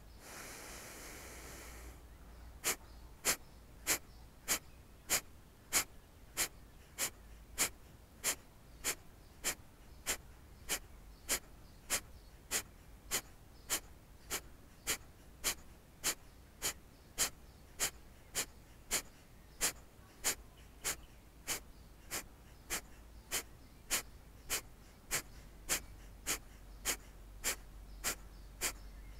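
Kapalabhati (breath of fire) breathing: after one longer breath at the start, a man's short, forceful exhalations through the nose repeat evenly, a little under two a second. The in-breaths between them are not heard, which the teacher gives as the sign of correct practice.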